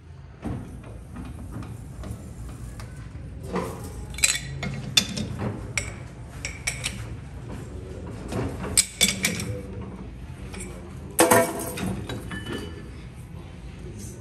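Steel parts and tools clinking and knocking against each other in irregular sharp strikes, over a steady low machinery hum.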